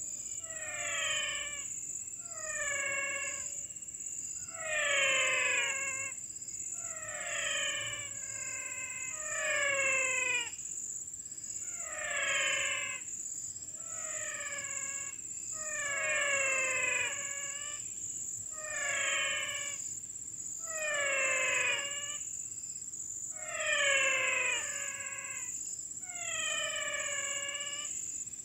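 An animal repeatedly gives a falling call, about one second long, roughly every two seconds, over a steady high insect trill.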